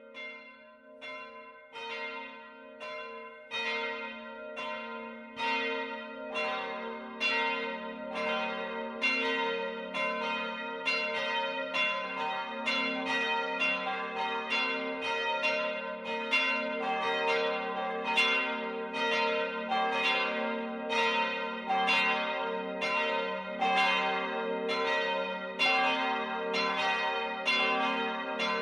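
Several church bells ringing together in a full peal. It fades in over the first few seconds, then settles into strikes about twice a second over the bells' steady, lasting hum.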